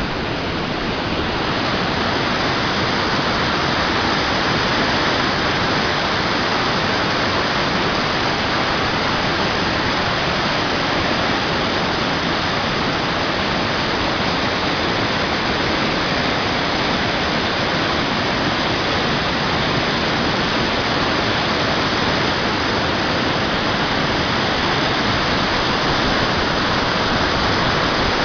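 Cascading stream waterfall running high with storm floodwater: a loud, steady rush of water.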